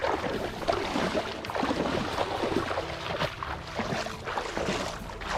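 Shallow rice-field water sloshing and splashing in irregular strokes, the sound of wading and searching through flooded paddy.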